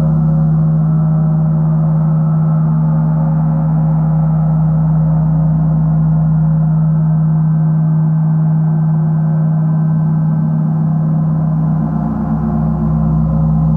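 Large gong played continuously with two soft-headed mallets, giving a sustained wash: a strong steady low hum with many shimmering overtones layered above it.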